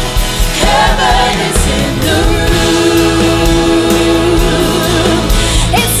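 Live worship music: a woman singing lead into a microphone over a full band, with backing singers, and a long note held through the middle.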